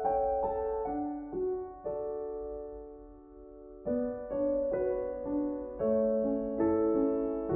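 Slow, gentle piano music: notes and chords struck one after another and left to ring, with a lull about two seconds in before the playing picks up again about four seconds in.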